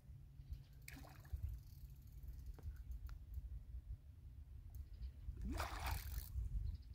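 A hooked carp splashing at the surface close to the bank while being played on a rod: a small splash about a second in and a louder, longer splash about five and a half seconds in.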